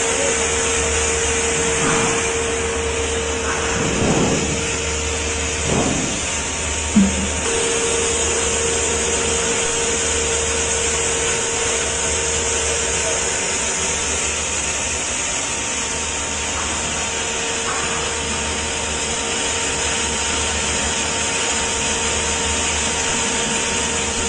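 Self-suction bean flour grinder running steadily, a constant whine and hum with a rush of air through its suction hose and cyclone as it grinds beans to flour. A few brief sounds come over it in the first several seconds, the sharpest a short knock about seven seconds in.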